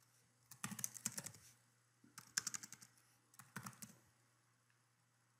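Computer keyboard typing in three short bursts of keystrokes, then stopping for the last second or so.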